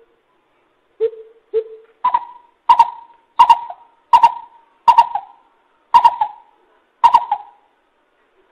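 Coucal hooting: two low hoots, then a steady series of about eight higher hoots, one every 0.7 seconds or so.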